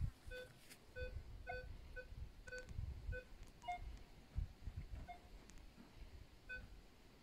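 Metal detector giving short electronic beeps as its coil is swept over rocky ground, mostly at one low pitch with an occasional higher one, irregularly spaced and stopping near the end. Faint low thumps sound in between.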